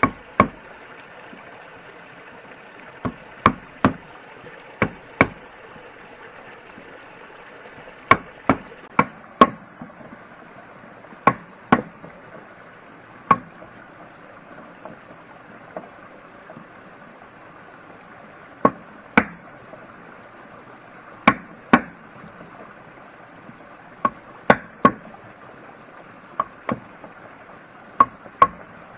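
Sharp knocks of wood being struck, as in chopping, coming irregularly and often in quick pairs, about twenty in all, over a steady hiss.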